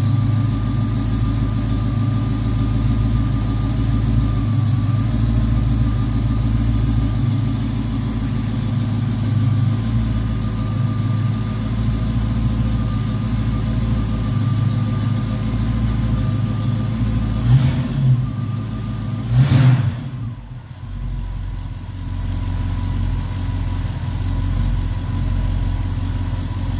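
1969 Ford Mustang Mach 1's V8 idling smoothly and quietly after a cold start, heard from the engine bay. About two-thirds of the way through come two brief thumps, after which the engine runs a little quieter.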